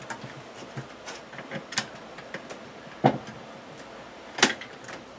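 Light clicks and knocks of a plastic LED under-cabinet light fixture being handled and pushed up onto its mounting tabs under a wooden cabinet. Two louder knocks come about three seconds in and again a second and a half later.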